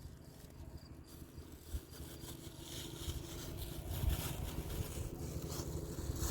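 Low, gusty rumble of wind buffeting the microphone, growing louder toward the end.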